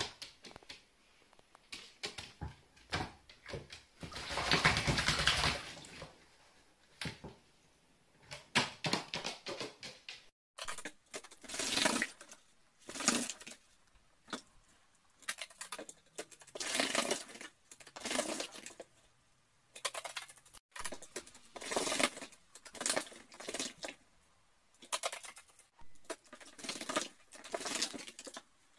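Carrion crow bathing in a small plastic basin of water, splashing in repeated short bursts as it dips and flutters its wings, with a longer splash about five seconds in.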